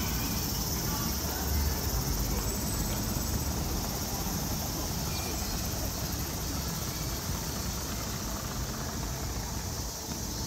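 Summer street ambience: a steady high insect buzz, the sound of cicadas, over a continuous low rumble of road traffic.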